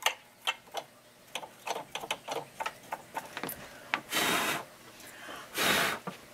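Soft lint brush scratching and ticking in quick small strokes against the plastic and metal of a Bernina Activa 240 sewing machine's bobbin and hook race area, brushing out lint. About four seconds in come two short breathy puffs of air.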